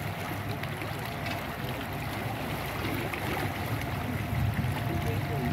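Steady rushing and churning of water as several large hoses pour into a test basin, filling it with rising water.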